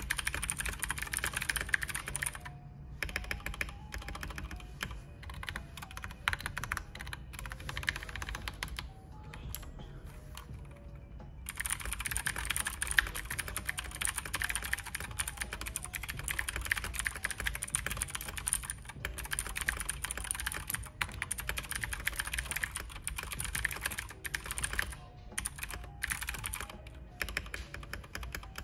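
Fast typing on a Keychron K2 mechanical keyboard with clicky Gateron Blue switches, tape-modded and foam-dampened, giving a dense run of sharp key clicks. The typing pauses briefly about two and a half seconds in and again around ten seconds in, with quiet background music underneath.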